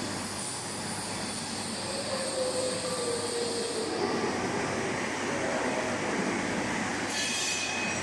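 Steady industrial machinery noise in a metal workshop, with a squeal that slides down in pitch about two seconds in and a brief high metallic whine near the end.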